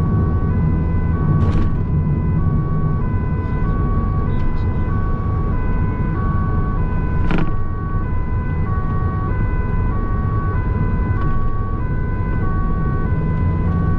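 Two-tone emergency siren of an incident-response van on a priority run, stepping back and forth between two pitches about every half second, heard from inside the cabin over steady engine and tyre noise. A sharp click sounds about seven seconds in.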